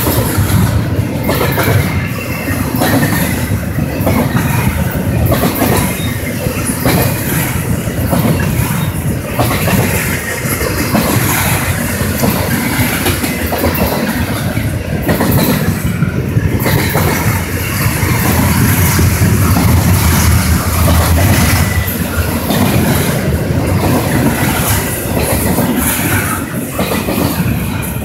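Double-stack intermodal freight train's well cars rolling past close by: a steady, loud rumble of steel wheels on rail, with repeated clickety-clack as the wheels cross the rail joints.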